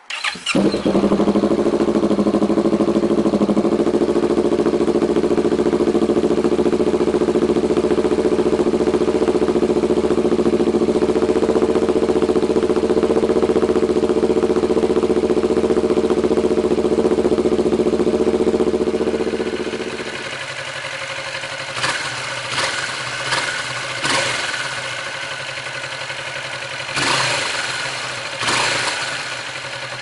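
The 2016 Kawasaki Vulcan S 650's parallel-twin engine, fitted with a Danmoto Highwayman aftermarket exhaust, is cold-started: it catches within about a second and settles into a loud, steady warm-up idle. About two-thirds of the way in, the sound drops to a quieter, lower idle, with several short louder bursts near the end.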